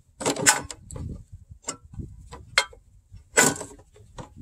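Knocks, clicks and rattles of engine parts being pulled loose by hand, as the dipstick tube and shroud assembly come off a Briggs & Stratton lawnmower engine. A few sharp knocks, the loudest about half a second in and again past three seconds.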